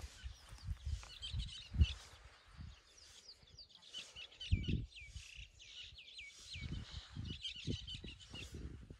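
Small birds chirping in a run of quick, repeated twittering calls, busiest through the middle, over scattered low thuds.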